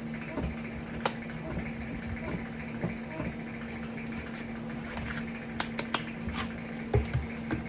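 Plastic 3D-printed bath bomb mold cup being pressed and twisted down onto packed bath bomb mix: a gritty scraping with a few sharp clicks, over a steady hum.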